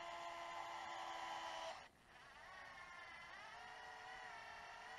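DeWalt cordless electric screwdriver whirring as it drives screws into a plastic differential case, in two runs: the first stops about two seconds in, and the second starts soon after, its pitch shifting a little partway through.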